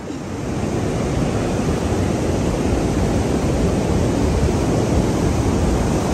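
Ocean surf breaking on a beach, mixed with wind buffeting the microphone: a steady rushing noise, heaviest in the low end, that swells up over the first second.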